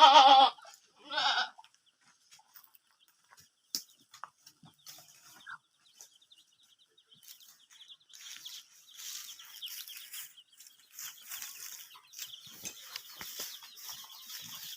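A goat bleating twice in quick succession, a loud wavering call and a shorter one, followed by faint scratchy rustling.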